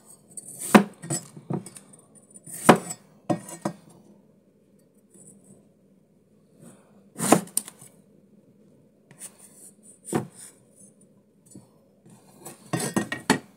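Cleaver chopping bitter melon on a cutting board: scattered sharp knocks of the blade through the gourd onto the board, a few at a time with pauses between and a quick run of strikes near the end.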